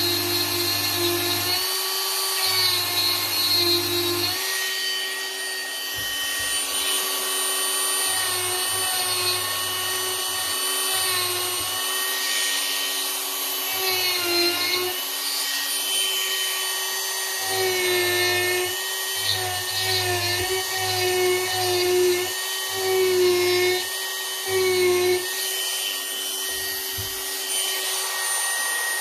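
Dremel rotary tool running at high speed, its bit carving into wood. The motor's whine holds steady but wavers slightly in pitch as the bit presses into the wood.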